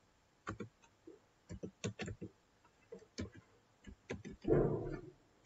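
Computer keyboard keystrokes: a dozen or so separate clicks at an uneven typing pace. About four and a half seconds in there is a louder, short rush of noise lasting about half a second.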